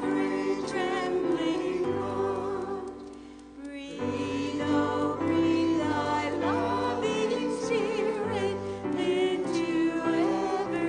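Congregation singing a hymn over held instrumental accompaniment. The verse ends about three and a half seconds in, there is a brief pause, and the next verse begins.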